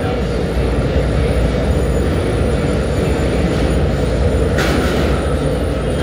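Industrial annealing furnace running: a steady, loud low rumble with hiss over it, and a brief surge of hiss late on.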